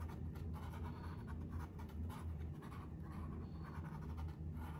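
Faint scratching of a small paintbrush stroking acrylic paint onto a stretched canvas, over a steady low hum.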